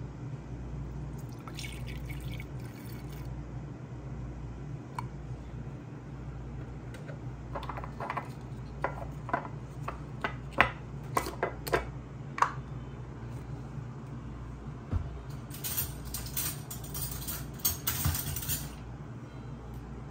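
Milk poured from a plastic bottle into the metal milk-frother jug of an Okka Rich Pro coffee machine: a run of short glugs and splashes about halfway through, then clinks and rustling near the end, over a steady low hum.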